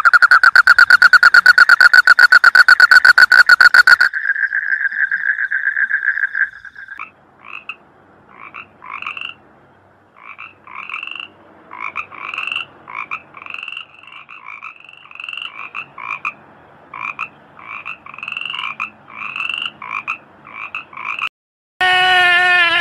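American green treefrog calling: a loud, rapid buzzing trill for about four seconds, then a steady held note, then a long series of short two-toned calls about one a second. Near the end a sheep bleats.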